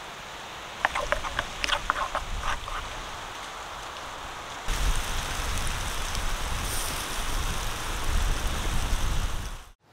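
Spatchcocked chicken sizzling in a wire grill basket over glowing charcoal, a steady hiss with crackles and a low rumble that starts suddenly about halfway through and cuts off just before the end. Before it, a quieter hiss with a quick run of sharp clicks.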